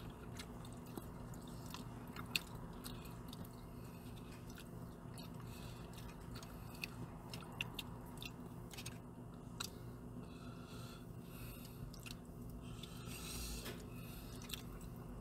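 A person eating hot jjamppong noodle soup with chopsticks: faint chewing and mouth noises, with scattered small clicks over a steady low hum.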